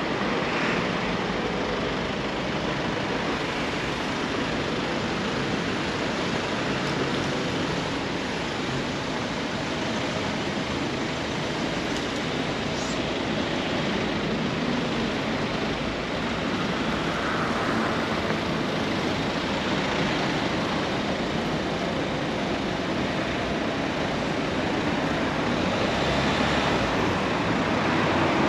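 Steady noise of passing road traffic.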